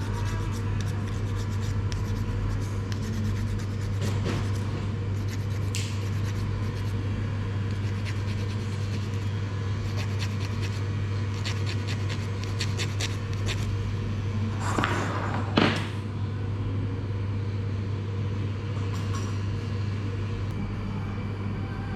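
Electric hair clipper buzzing steadily through a haircut, with scraping and light clicks over it. A brief, louder hiss comes about fifteen seconds in.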